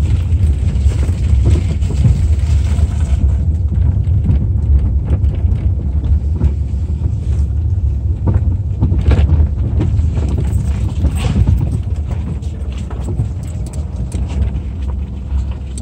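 A car driving slowly over a rough dirt track, heard from inside the cabin: a heavy, steady low rumble with scattered knocks and rattles as it bumps over the ground, heaviest about halfway through.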